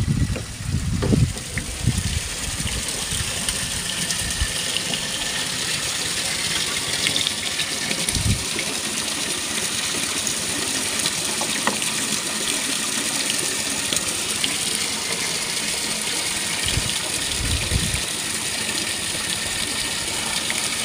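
Water gushing in a strong, steady flow, with a few dull low thuds partway through.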